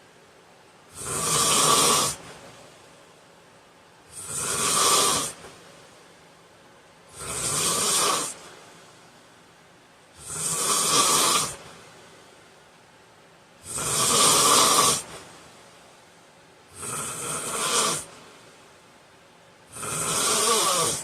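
A man snoring in his sleep: seven loud snores about a second long each, coming evenly every three seconds or so, with quiet breathing gaps between them.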